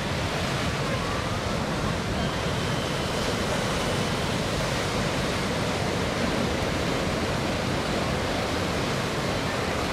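Steady rushing drone of a distant MH-53E Sea Dragon helicopter's rotor and turbines, blended with surf-like noise and without distinct blade beats.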